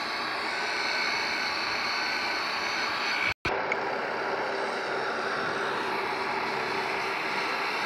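Electric rebar machine's motor running steadily, with a brief gap about three and a half seconds in.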